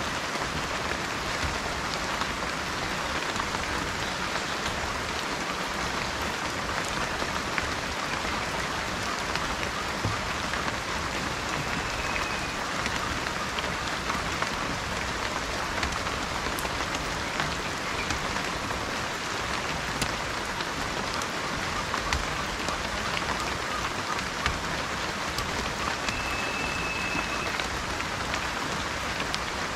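Steady rain falling, an even dense patter of drops.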